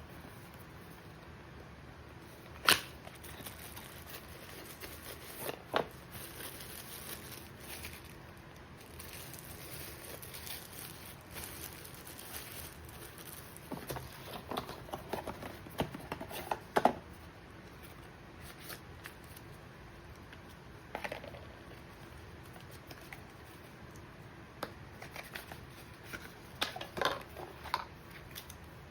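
Packaging being handled and opened: scattered rustling, crinkling and sharp little clicks of cardboard and plastic, with a sharp click about three seconds in and busier handling in the middle and near the end.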